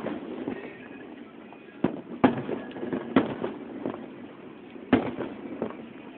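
Fireworks bursting overhead: four sharp bangs, two close together about two seconds in, one a second later and one near five seconds, with smaller pops and crackle between them.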